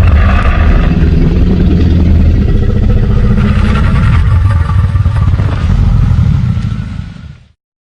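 Designed creature sound effect for a fictional dinosaur: one long, deep growl lasting about seven seconds, heavy in the low end, fading away near the end.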